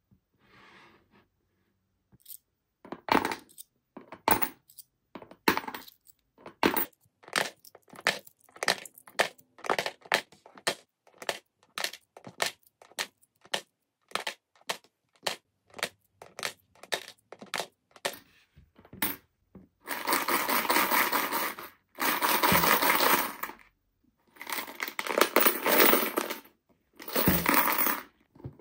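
Coins dropped one at a time through the slot of a plastic SpongeBob piggy bank, clinking inside it, one or two a second. From about twenty seconds in, the bank is shaken in four bursts of a couple of seconds each, with the coins inside rattling loudly.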